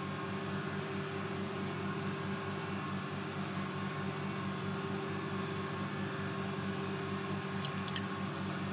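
Steady electrical hum of laboratory machinery, with a few faint ticks near the end.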